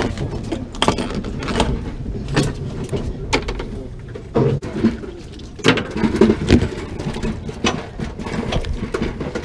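Sharp knocks and taps on a boat deck, roughly one a second, over a steady low rumble.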